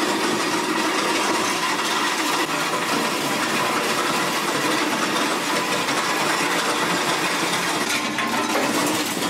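Clear plastic sprues clattering and clinking as they are handled and tipped into a metal hopper, over steady factory machine noise.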